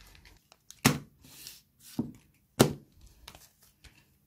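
Booster packs being handled on a table: three sharp knocks, the loudest about two and a half seconds in, with soft rustling of the foil packets between them.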